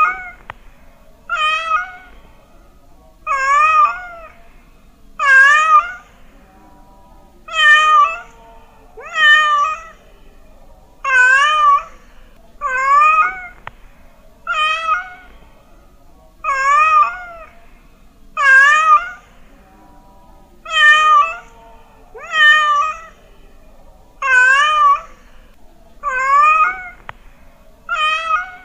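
Domestic cat meowing over and over, about one meow every second and a half. Each meow is short and near-identical, its pitch wavering up and down.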